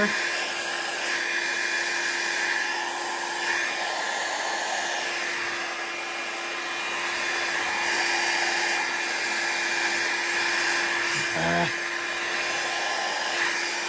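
Revlon 500-watt styling-brush hair dryer running steadily, a constant rush of blown air with a steady hum under it.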